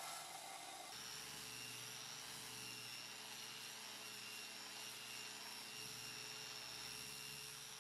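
A bench grinder's belt sander runs against the cast-iron base of a charcoal iron for about a second. Then a different machine takes over: an angle grinder with a sanding disc runs steadily over the iron's cast-iron body, with a steady high whine over the grinding noise.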